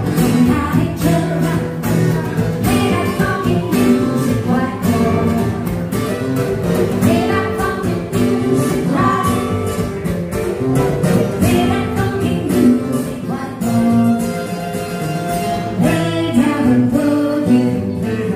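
Live acoustic guitar and singing: a song performed by a duo, with the guitar strummed under the vocal line.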